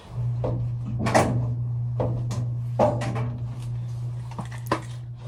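Knocks and clunks of a washer and dryer being unloaded and loaded, doors and drums handled as wet laundry is moved across, over a steady low hum.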